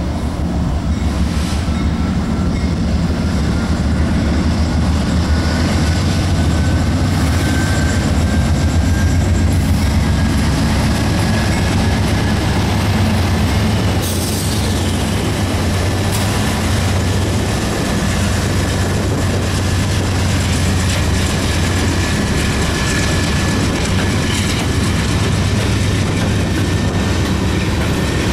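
Two GE C40-9W diesel-electric locomotives passing close by with a deep, steady engine rumble, their wheels clicking over the rail joints. A thin, high wheel squeal from the curve slowly rises in pitch throughout, and a couple of sharp clanks come about halfway through.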